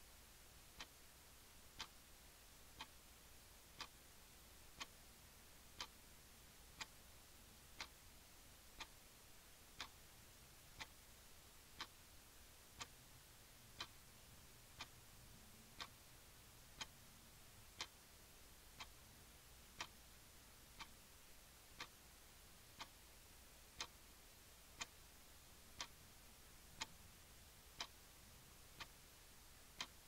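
Clock ticking steadily, one sharp tick each second, over a faint hiss.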